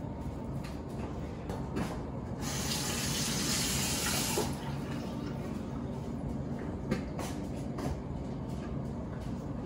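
A water tap runs for about two seconds, starting a couple of seconds in and shutting off sharply. Soft clicks of food being handled on a plate come before and after it.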